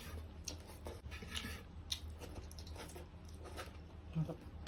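Close-up chewing and small wet mouth clicks of someone eating, over a low steady hum, with a sudden loud thump at the very end.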